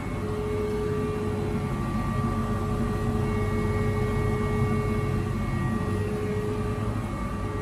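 Cryotherapy cabin (cryosauna) running its pre-cooling cycle toward −120 °C: a steady machine hum with a few held whining tones over a rushing noise.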